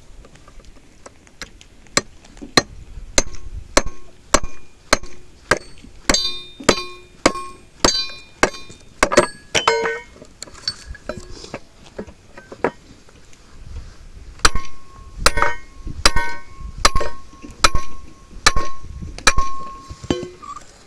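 Firewood being broken with repeated hard blows of a metal tool, each hit sharp with a brief metallic ring, about two a second, in two runs with a pause of a few seconds between them.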